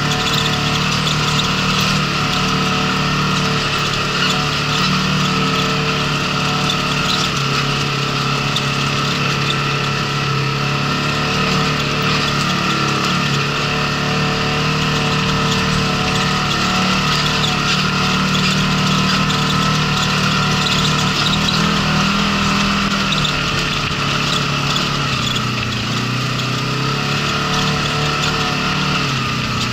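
Polaris RZR side-by-side engine running steadily as it drives a rough gravel trail, its note stepping down a few seconds in and rising and falling again past the middle, over steady noise from the tyres and track.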